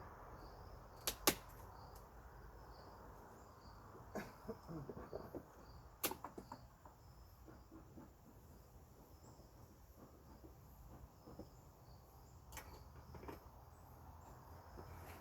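Sharp wooden clicks and knocks of beehive frames and boxes being handled, the loudest pair about a second in, with a run of small taps and rustles midway and a few more clicks near the end. Faint steady chirping of crickets underneath.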